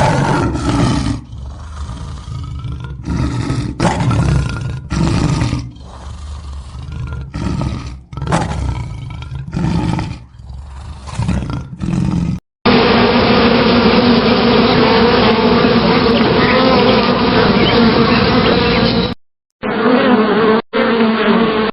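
A run of repeated deep animal roars, each a second or less. It cuts to a steady, pitched buzzing drone, which breaks briefly twice near the end.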